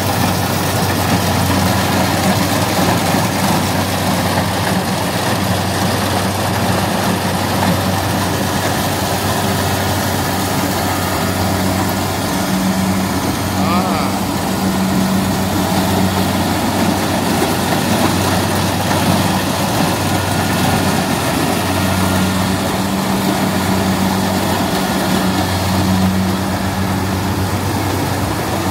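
Kubota DC-80 Plus rice combine harvester running steadily under load as it cuts and threshes rice: a continuous low diesel engine drone with machinery noise over it.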